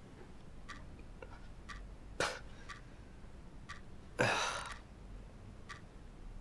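A clock ticking steadily, about once a second, in a quiet small room. A brief rush of noise comes about two seconds in, and a louder half-second one just after four seconds.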